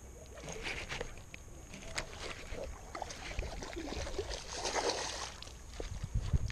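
A hooked fish splashing and thrashing at the water's surface near the bank, with the biggest burst of splashing a little after halfway. Light clicks and knocks from handling the rod and reel come and go around it.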